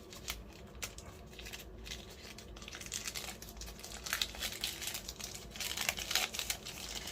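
Packaging crinkling and rustling as a small accessory is unwrapped by hand, with many small crackles, busier and louder in the second half.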